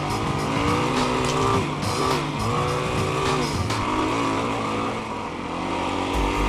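Yamaha WR450F's single-cylinder four-stroke engine running under way on a dirt trail. Its pitch rises and falls several times with the throttle.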